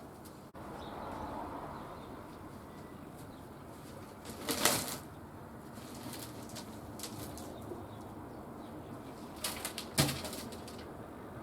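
Outdoor handling noise with rustling over a steady background hiss. Two loud sharp knocks or scrapes come about four and a half seconds in and again near ten seconds, with a few lighter ones between.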